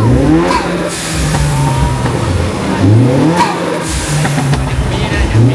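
A parked car's engine being revved again and again, about three times: each rev climbs quickly, holds briefly, then drops back toward idle.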